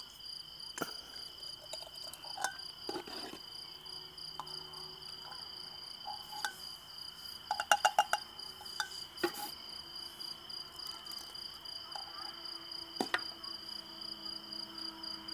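Crickets chirring steadily in two unbroken high tones throughout. A metal ladle clinks against glass jars and the pot as jam is spooned into a jar, with a quick run of sharp clinks about eight seconds in, the loudest sounds.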